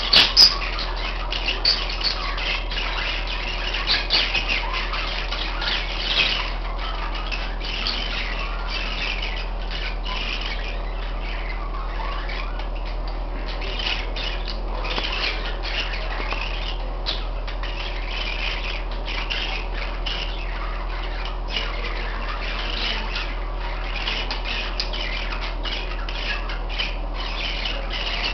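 Several pet parakeets squawking and chirping continuously in their cage, a busy stream of short high calls.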